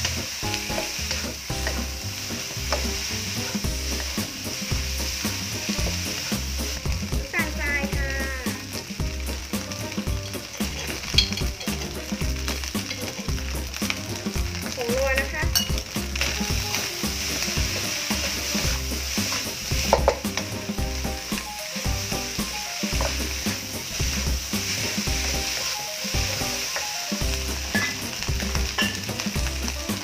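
Rice sizzling in oil in a hot nonstick wok while a wooden spatula stirs and scrapes it across the pan, with a couple of sharper knocks of the spatula against the wok. A low, even pulsing runs underneath.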